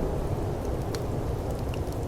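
Steady low rush of snowstorm wind with a firepit crackling over it: a few sharp pops scattered through, the clearest about a second in.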